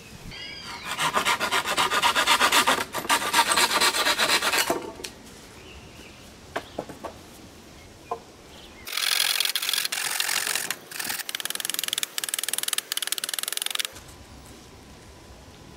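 Fast rasping, scraping strokes in two spells of about four to five seconds each, with a pause between.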